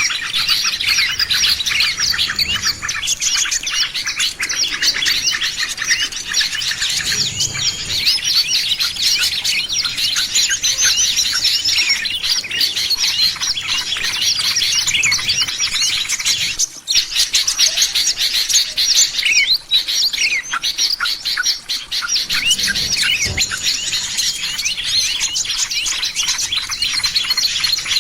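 A dense chorus of many small birds chirping and twittering rapidly, with no let-up apart from a brief dip partway through: a lure recording of small-bird calls used to draw wild birds in.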